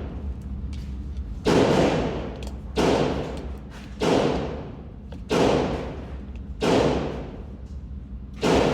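Six gunshots fired at a steady pace, about one every 1.3 seconds, each followed by a long echoing decay.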